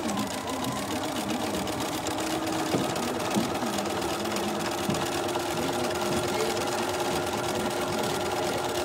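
Bernina B 335 sewing machine running steadily, stitching a seam through the fabric in a fast, even rhythm.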